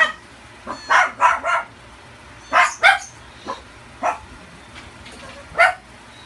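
Dog barking: a string of short, sharp barks, some in quick runs of two or three, the last one near the end.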